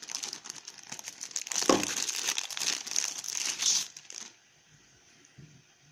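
Thin plastic wrapping crinkling as a TV-box remote control is handled and unwrapped, busiest in the middle and stopping a little after four seconds in.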